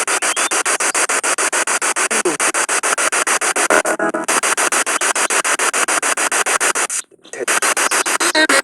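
Spirit box radio scanning through stations: loud static chopped into rapid even pulses, about eight to ten a second. There is a brief snatch of a station's sound about halfway through and a short dropout a couple of seconds later.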